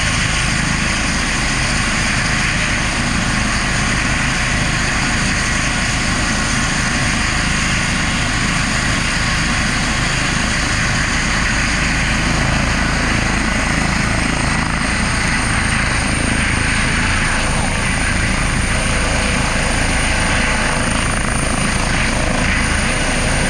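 Air ambulance helicopter running on the ground with its rotors turning, a steady dense rotor and turbine noise with a fast beat underneath. A high whine grows stronger past the middle, and near the end the helicopter lifts off.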